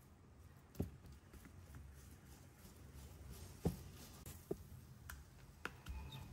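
A few short, light knocks and clicks over a low hum, about five in all, the loudest nearly four seconds in.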